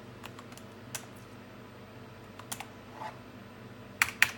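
Scattered light clicks of computer keys or buttons being pressed to step through BIOS menus, with two sharper, louder clicks in quick succession near the end, over a steady low hum.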